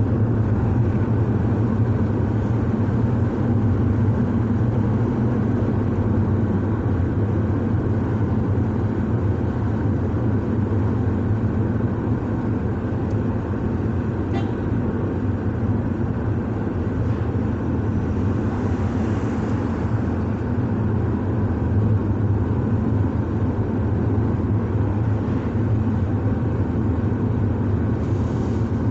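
Steady drone of a car driving along a road, engine and tyre noise heard from inside the car.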